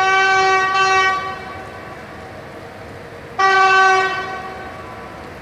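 Horn of an approaching E403 electric locomotive sounding two blasts, each about a second long, the second about three seconds after the first. A steady hiss of rain runs underneath.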